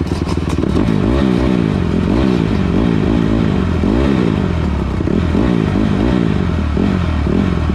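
Honda CRF150R's four-stroke single-cylinder engine being blipped on the throttle over and over, about two quick rev-ups and drops a second, as a beginner practises chopping the throttle.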